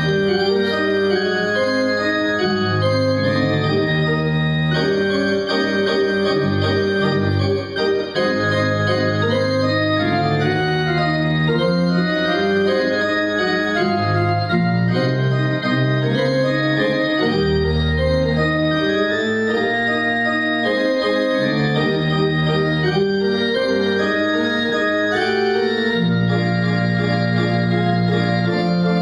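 Electronic keyboard playing an organ sound: sustained chords over a bass line that moves every second or two.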